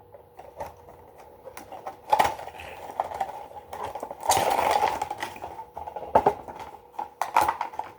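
Funko C-3PO bobblehead and its packaging being handled: scattered clicks and taps, with a longer rustle about four seconds in.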